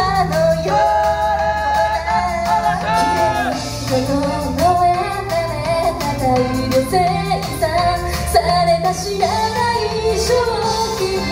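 Japanese idol pop song performed live: a group of female singers singing into microphones over a pop instrumental with a steady beat.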